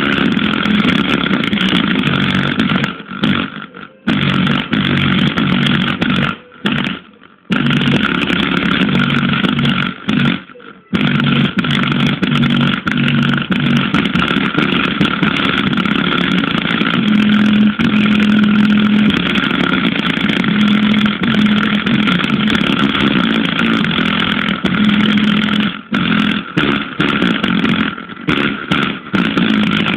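Subwoofer playing loud, distorted bass with a rough, buzzy sound. The low notes step from one pitch to another, and the sound cuts out briefly three times in the first eleven seconds.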